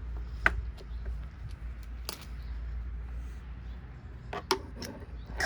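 Scattered clicks and light knocks of a plastic vacuum cleaner housing and parts being handled during disassembly, over a low steady hum.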